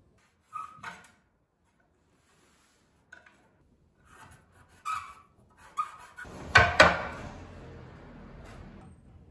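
Knocks and clunks of steel chair-frame rods and a skateboard deck being handled on a wooden workbench: a few light taps in the first half, then two loud knocks close together about two-thirds of the way through, followed by a soft rustle.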